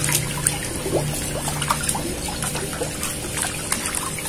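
Water splashing and dripping as a hand works a garden hose down under the surface of an aquarium, filling the hose with water to start a siphon. Many small, irregular splashes and drips.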